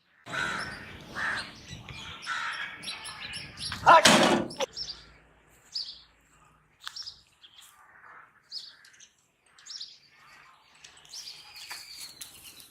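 A person's loud sneeze about four seconds in, after a few seconds of noisy build-up. Birds chirp and tweet through the rest.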